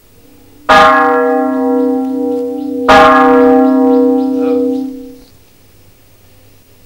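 Huge 775 kg temple bell struck twice, about two seconds apart, each stroke ringing on in a long hum that dies away a couple of seconds after the second strike.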